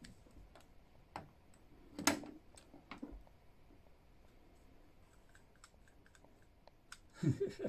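Scattered light plastic clicks and taps as vintage Ghostbusters action figures are handled and their spring-action features worked, with one sharper click about two seconds in.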